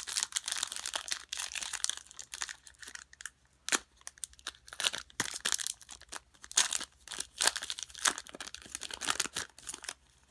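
Plastic foil wrapper of a trading-card pack being torn open and crinkled by hand, with irregular crackles and snaps throughout.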